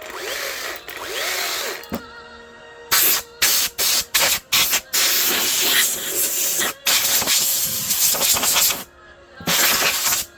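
Compressed air blasting dirt out of a Makita DUC254 battery chainsaw: loud hissing blasts that start and stop abruptly, first several short ones and then longer ones, over background music.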